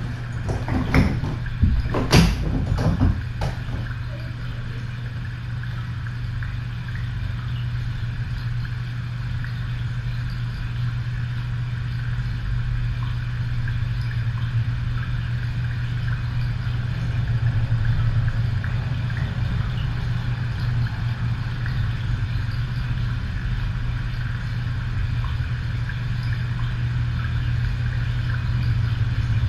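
Steady low hum, with a few sharp knocks and clatters in the first three seconds.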